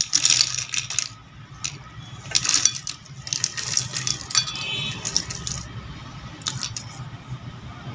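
Crisp fried shankarpali pieces dropped onto a plate, clattering and rattling in several bursts of quick clicks over the first five and a half seconds, then only a steady low hum.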